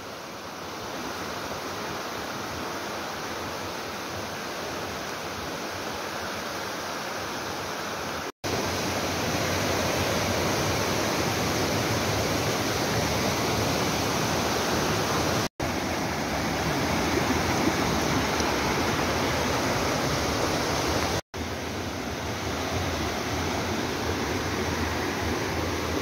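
Steady rush of water flowing over rocks. The sound cuts out briefly three times and is louder after the first break, about a third of the way in.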